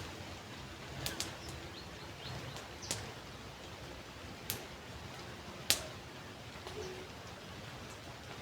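Steady hiss of light rain and running water outdoors, with a handful of sharp drip ticks on a nearby surface, the loudest a little past the middle.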